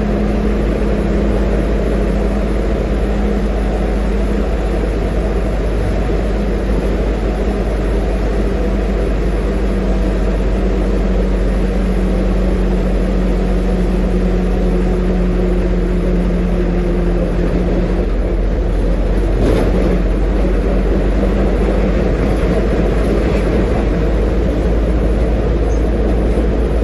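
A medium bus's engine, mounted under the engine cover inside the cabin, running steadily while the bus drives, heard from inside the bus: a loud, continuous low drone with a hum that drifts slightly in pitch. A brief knock is heard about two-thirds of the way through.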